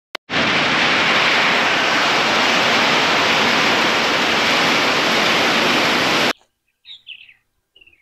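Heavy rainstorm: a loud, steady rush of rain and wind that cuts off suddenly after about six seconds. A few short bird chirps follow.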